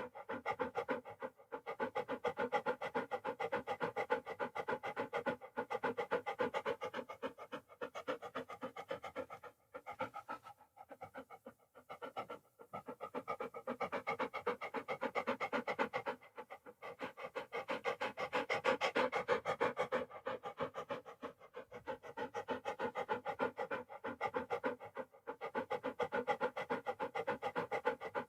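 Dog panting rapidly: quick, even breaths in a steady run, with a few brief pauses along the way.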